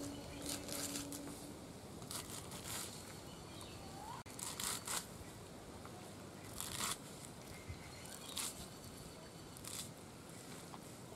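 Scissors snipping through bunches of fresh jute leaves, a short crisp cut every second or two, some in quick pairs.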